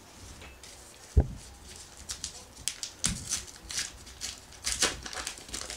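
A baseball card pack is picked up with a dull knock on the table about a second in, then its wrapper is torn open with a run of quick crinkling, tearing crackles.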